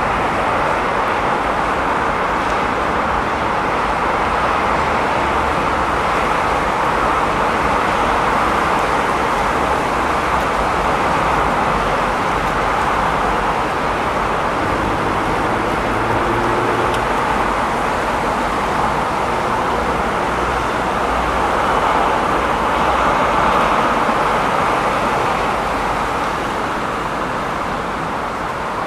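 Urban street traffic ambience: a continuous wash of passing cars and engine noise, swelling slightly about two-thirds of the way through.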